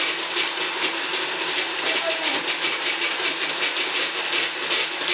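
Ice shaver shaving ice, a steady grinding noise with a quick, even pulse.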